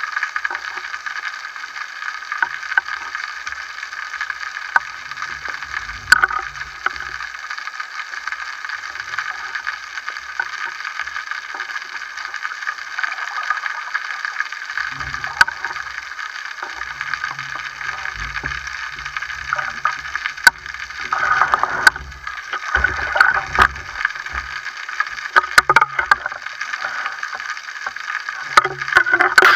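Underwater sound picked up by a camera in a waterproof housing mounted on a speargun: a steady hiss with scattered sharp clicks and low knocks. From about halfway the knocks and rumbles come more often, with louder bouts of handling noise from the gun and the speared sea bass.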